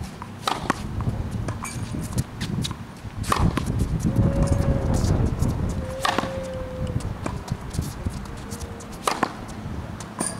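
Tennis racket striking the ball in a baseline rally: four sharp hits about three seconds apart.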